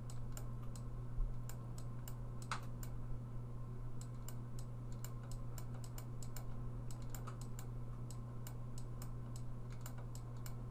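Light, irregular clicks and taps, several a second, as a stylus hand-letters words on a drawing tablet, over a steady low electrical hum.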